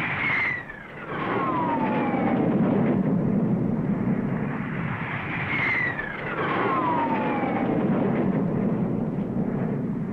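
Formation of Air Force jet aircraft flying low overhead, a heavy jet roar. Twice, about half a second in and again about five and a half seconds in, a high whine falls in pitch as a pass goes by.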